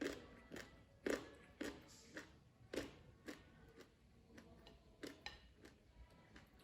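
Close-up chewing of crunchy food, sharp crisp crunches about two a second, thinning out after the middle.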